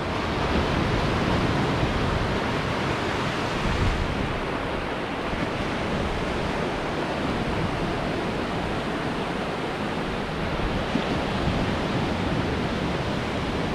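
Sea surf breaking on a sandy beach, a steady wash of noise with no let-up; the waves are running high.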